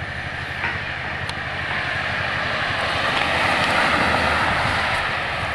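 A car driving past, its tyre and engine noise growing louder to a peak about four seconds in and then fading as it goes by.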